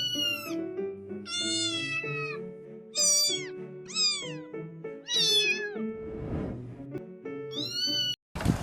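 Domestic cat meowing repeatedly, about six separate meows that each rise and then fall in pitch, over soft background music.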